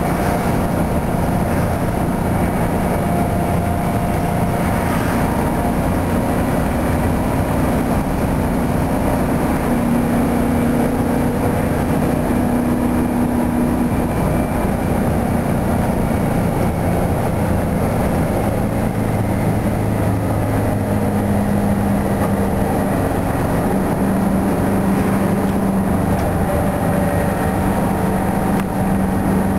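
Detroit Diesel 8V71 two-stroke V8 diesel of a 1972 Flxible New Look transit bus running under way, heard from inside the bus together with road noise. The engine's steady hum shifts in pitch several times as the bus drives along.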